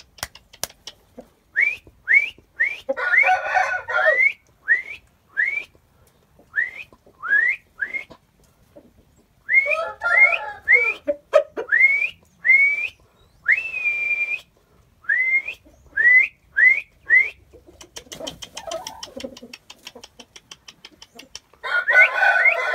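Chickens in a pen calling: three hoarse calls about a second long, over many short rising whistled chirps in quick runs, and scattered sharp taps.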